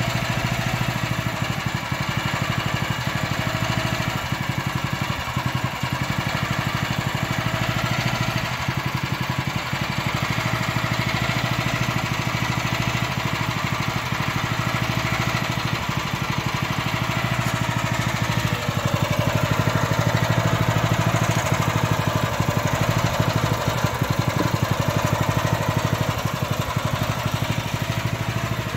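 Small engine running steadily at constant speed, driving the rotating stirrer of a cassava-flour roasting pan; it grows a little louder about two-thirds of the way through.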